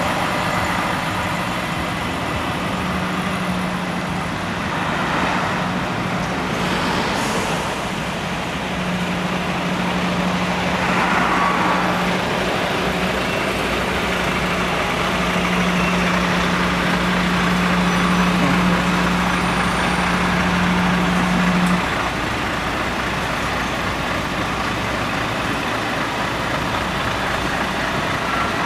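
Heavy lorries' diesel engines running as a queue of tractor units idles and creeps along the road, with a steady low drone that stops about two-thirds of the way through. There are a couple of brief hisses in the first half.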